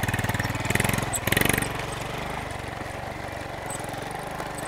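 Small step-through motorcycle's engine revving as it pulls away, with louder surges in the first second and a half, then running steadily and gradually fading as it rides off.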